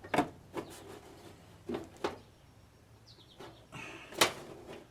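Sharp clicks and knocks of a plastic fender liner and its push-in clips being handled and fitted, about five scattered hits with the loudest about four seconds in. A brief high chirp a little after three seconds.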